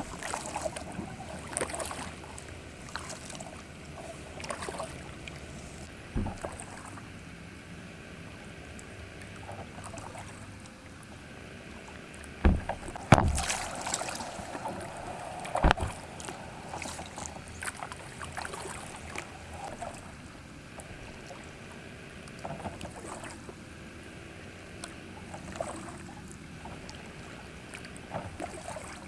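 Kayak paddle strokes dipping and splashing in the water at an irregular pace, over a steady hiss. About twelve seconds in there are a few sharp knocks, the loudest sounds here.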